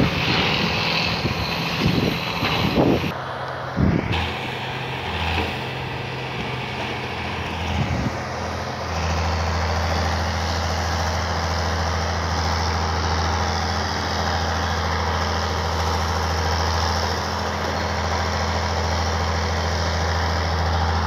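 Scattered metal clanks and bangs of scrap steel in the first few seconds, then from about nine seconds in the heavy diesel engine of a scrapyard grapple crane running steadily.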